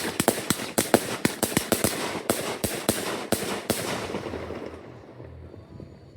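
Fireworks going off in quick succession: a fast run of sharp bangs, about five a second, that thins out after about four seconds into a fading crackle and low rumble.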